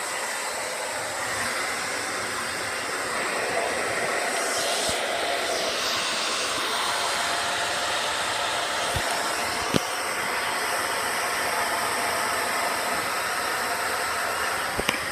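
Handheld electric hair dryer blowing steadily while drying a dog's coat, its rush of air changing in tone for a few seconds as the nozzle is moved about. Two short sharp clicks sound over it, one about two-thirds of the way through and one at the very end.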